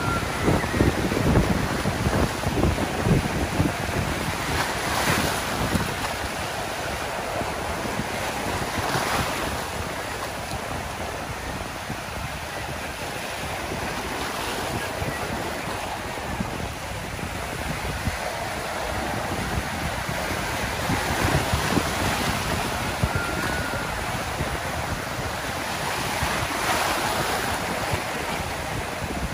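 Small Gulf surf breaking and washing up a sandy beach, each wave's wash swelling and fading about every five or six seconds. Wind buffets the microphone with a low rumble, heaviest in the first few seconds.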